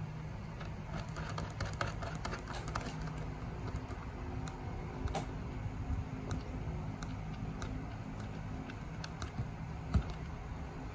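Small scattered clicks and scratches of fingers screwing a brass hex nut onto the threaded shaft of a wall clock movement, tightening it down against the dial face. The clicks come thickest in the first few seconds, then sparser, with one firmer knock near the end, over a low steady hum.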